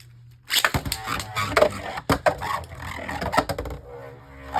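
Beyblade Burst spinning tops whirling and colliding in a plastic stadium: a rapid, irregular clatter of hits and scraping that starts about half a second in.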